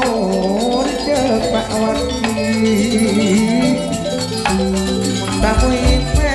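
Gamelan music: struck metallophones and gongs with drum strokes, under a melodic line that glides up and down.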